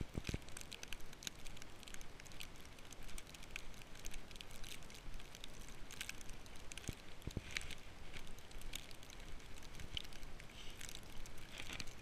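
Footsteps crunching through deep fresh snow: an irregular run of soft crackles over a steady low hiss.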